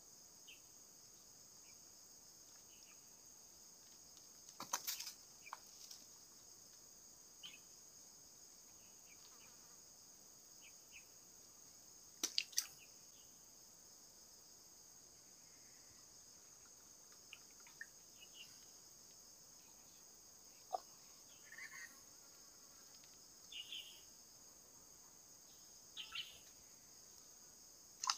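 Faint, steady high-pitched insect chorus, with a few sharp clicks, the loudest about five and twelve seconds in, and scattered short high chirps.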